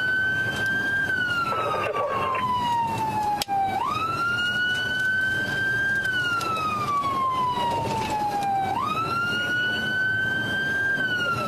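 Police car siren in wail mode, rising quickly then falling slowly, about one cycle every five seconds, over steady road and engine noise. A brief click and dropout comes about three and a half seconds in.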